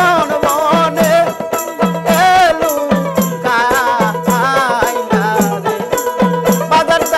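Live Baul folk song: a man sings with a wavering, ornamented voice, accompanied by a plucked dotara, a small hand drum repeating a low note that bends down slightly, and the steady jingling of a tambourine-like ring keeping the beat.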